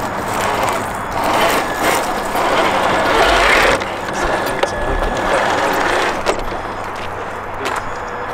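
Traxxas TRX-4 RC crawler's electric motor and geared drivetrain whirring as it creeps over gravel, with scattered clicks and rattles; it is loudest a second or so in until about four seconds in.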